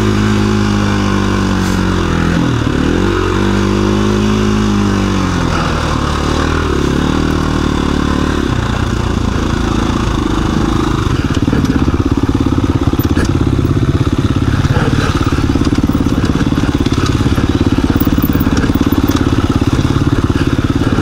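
2017 KTM 350 EXC-F dirt bike's single-cylinder four-stroke engine under way on a rocky trail, its pitch rising and falling with the throttle, with a sharp dip about two and a half seconds in. From about eleven seconds in it runs louder and steadier under more throttle.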